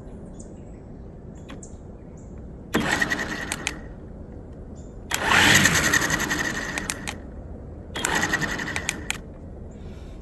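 EGO 56-volt battery string trimmer (multi-tool head with trimmer attachment) revved three times on the trigger, spinning the line head freely with a steady high whine. The middle run is the longest and loudest, about two seconds; the other two last about a second.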